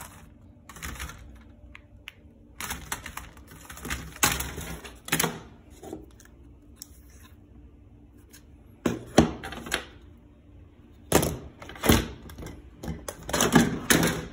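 Loose parts of a disassembled laptop being picked up and handled, giving irregular plastic and metal clacks and knocks, several in quick succession about nine seconds in and again near the end.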